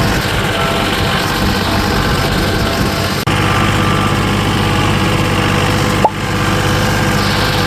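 Tractor engine running steadily, with a brief click about six seconds in.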